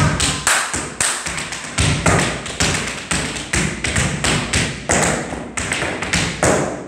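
Tap shoes on a wooden floor: a fast, continuous run of taps and heavier stamps as a tap routine is danced through, stopping shortly before the end.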